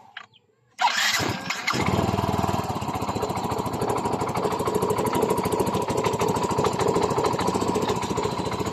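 Yamaha Mio i 125 scooter's single-cylinder four-stroke engine starting about a second in and settling into a steady, even idle. It is running on a newly fitted cylinder and piston, without the knocking of the piston slap it had before.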